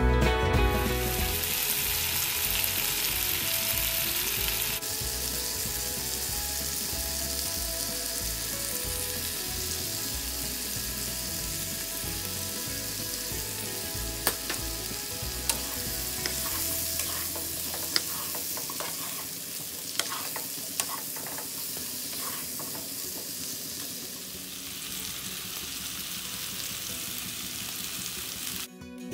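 Boiled baby potatoes sizzling in a nonstick frying pan as they are stirred with a wooden spatula, with a few sharp knocks of spatula and potatoes against the pan around the middle.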